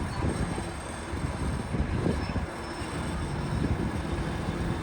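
Shantui DH17C2 bulldozer's diesel engine running steadily, a low rumble with a steady engine note.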